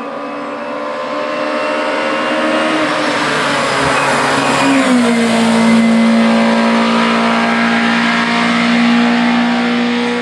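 Hillclimb race car's engine running hard at high revs, growing louder as it approaches. About five seconds in, its pitch drops once, then holds steady.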